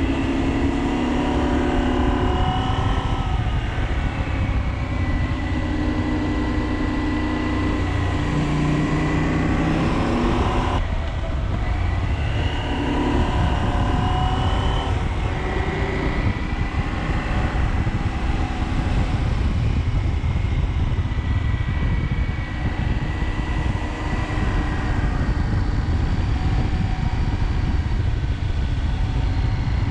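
KTM 790 Adventure's parallel-twin engine running on the move, its pitch rising and falling with the throttle, over a steady low rumble. The sound changes abruptly about eleven seconds in.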